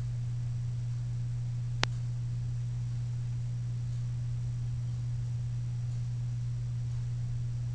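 Steady low hum with a single sharp click about two seconds in.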